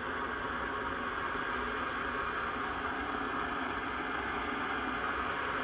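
Russian Primus PT-2 petrol (gasoline) pressure burner burning with a steady rushing hiss as it comes up to main combustion after alcohol preheating. For a petrol stove its burn is quiet, without the sputtering of a Svea 123R.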